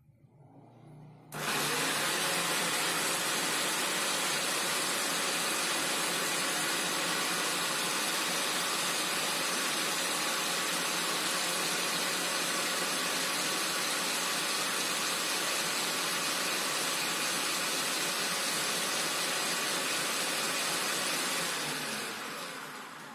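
Bolde Super Processor's electric motor spinning its citrus-juicer reamer while a lemon half is pressed onto it: a steady mechanical whir that jumps to full level about a second in, then fades as the motor is switched off near the end.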